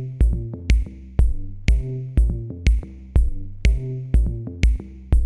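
Electronic background music with a steady beat, a drum hit about twice a second over a held bass line.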